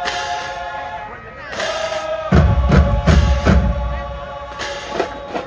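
Marching band brass holding a loud chord, then about two seconds in the bass drums and percussion come in with a quick run of heavy beats under the horns.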